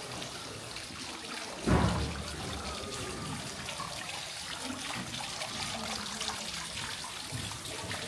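Running water trickling steadily, with one sudden low thump about two seconds in.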